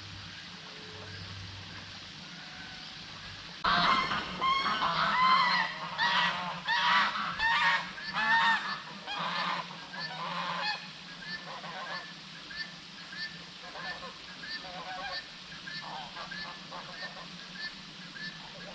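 A loud chorus of honking bird calls breaks out suddenly about four seconds in, several calls a second, then dies down to quieter, sparser calls.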